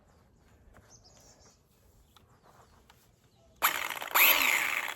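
Electric chainsaw triggered for a test run after its thrown chain was refitted to the bar: it starts about three and a half seconds in, runs in two quick bursts, and its motor winds up with a rising whine on the second. The chain runs properly.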